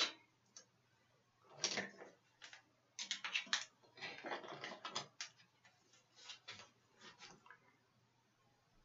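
Small makeup tools being rummaged through and picked up: a string of light clicks and rattles in uneven clusters, stopping about a second before the end.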